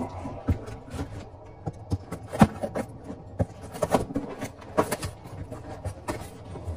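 Irregular knocks and clinks of aerosol spray paint cans being handled and lifted out of a cardboard box, with cardboard rubbing and flapping.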